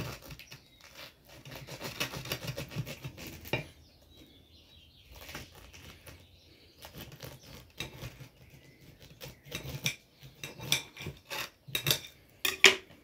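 A serrated knife sawing through a whole pineapple's rind and flesh: dense crunching, scraping strokes for the first few seconds, sparser strokes after, then more strokes building to a sharp click near the end.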